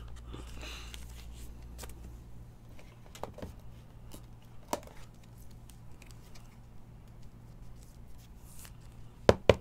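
Clear plastic card sleeve and holder being handled as a trading card is slid in: soft plastic rustling and scattered light clicks, then two sharp clicks close together near the end.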